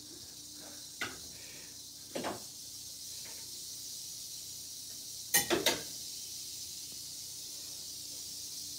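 A few short knocks and clacks as the sliding glass doors of a reptile enclosure and a metal feeding bowl are handled, the loudest a quick cluster of clacks about five seconds in, over a steady high hiss.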